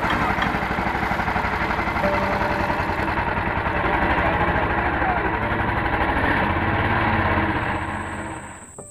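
A small engine running steadily with a fast, even firing rhythm, then dying away just before the end. A high, steady insect trill comes in near the end.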